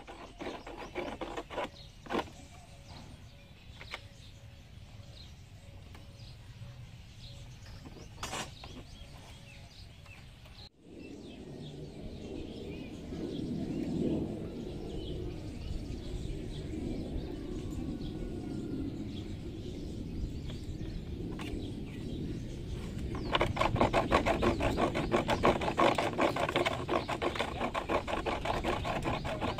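Hand-tool work on a plastic car bumper: scattered knocks and handling noises, then, for the last several seconds, a fast, even rasping clicking as something is worked into the plastic.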